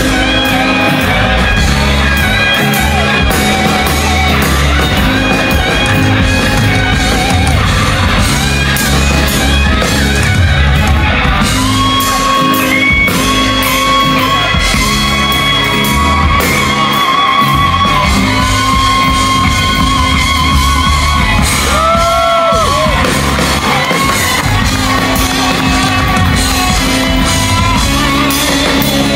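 Live band music with electric guitar over bass and drums, loud and steady throughout. Long wavering high notes are held through the middle, with a short glide in pitch a little later.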